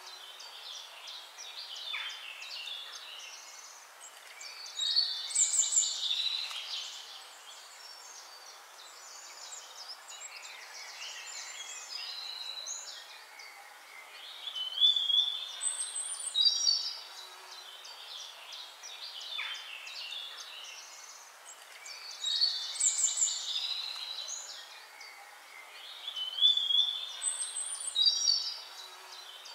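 Birds chirping and warbling in high clusters that come and go every few seconds, over a steady hiss.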